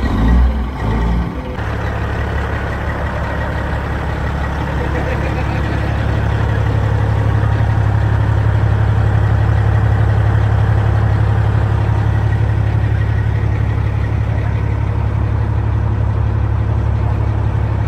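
Diesel semi-truck engine idling steadily: a loud, even low rumble.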